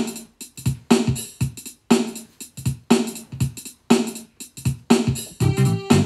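Outro music with a steady beat: a strong hit about once a second with lighter hits between, and deeper held notes joining near the end.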